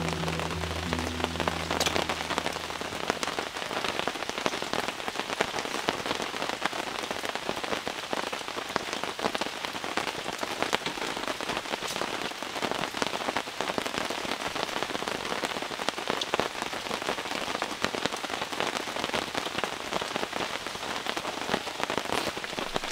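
Steady rain falling, a dense even hiss made of many separate drop strikes.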